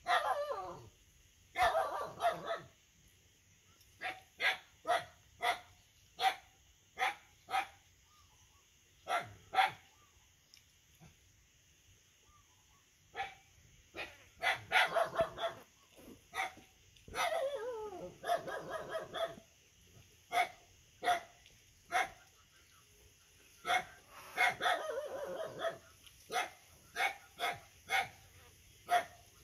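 Puppy barking: many short, sharp barks spread irregularly, with a few longer, wavering cries of a second or two, one at the very start.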